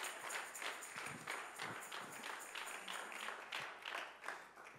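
Congregation applauding, the claps thinning and dying away near the end.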